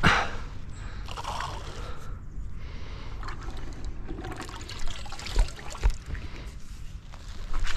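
Baiting spoon swung to throw maize and tiger nuts out over a river swim, with a swish as it is flung at the start and again near the end, and the bait scattering onto the water. Between throws, water trickles off the spoon and there are a couple of dull knocks.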